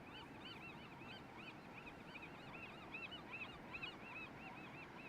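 A flock of birds calling faintly, many short rising-and-falling notes overlapping several times a second, over a faint steady hiss.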